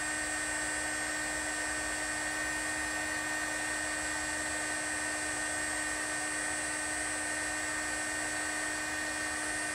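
Electric heat gun running steadily, its fan blowing with a steady whine over the rush of air, as it shrinks heat-shrink tubing over a crimped battery-terminal connection.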